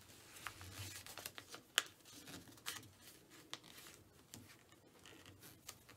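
A sheet of paper being folded in half and creased by hand, faint rustles and small ticks as fingers press the fold flat against a table, with one sharper tick a little under two seconds in.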